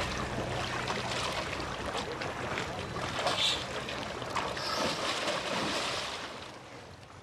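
Shallow seawater splashing and churning as sharks thrash about while feeding close to shore, with brief louder splashes; the splashing fades out over the last second or so.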